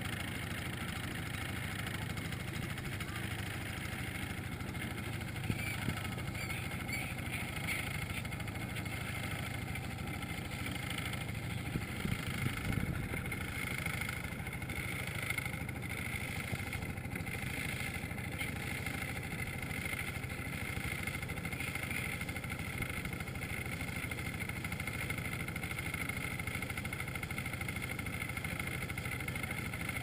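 Boat engine running steadily while the boat is under way. A brief louder rumble comes about twelve seconds in.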